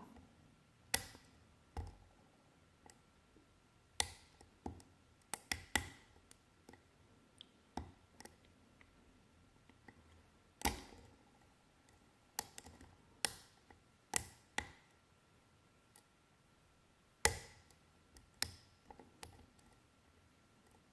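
Sparse, irregular metallic clicks and taps of a straight flag dimple pick working the pins of a BRISANT 6-pin dimple Euro cylinder lock.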